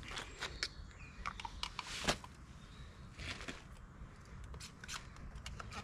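Scattered light clicks and knocks of small objects being handled, the sharpest about two seconds in.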